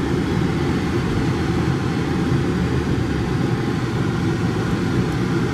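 Steady in-cabin noise of a 1993 Lincoln Town Car under way: road and engine noise with the air-conditioning blower running.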